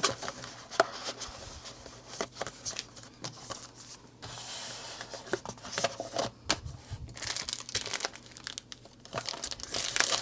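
Crinkling and rustling of cardboard and paper packaging as a small kit box is packed and its flaps and insert handled, with irregular light taps and scrapes. A plastic bag crinkles among the contents.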